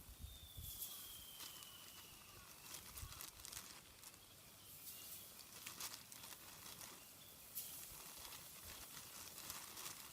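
Faint, irregular crackling and popping from a wood cooking fire, with chicken frying over it. Near the start a thin high whistle glides slightly down in pitch for about two seconds.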